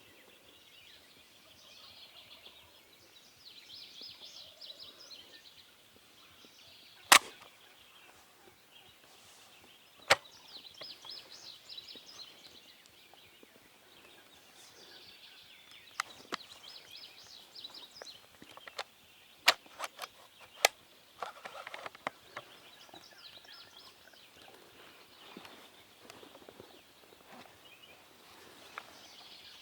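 Songbirds singing in repeated high trilling phrases, with several sharp single clicks or taps scattered through.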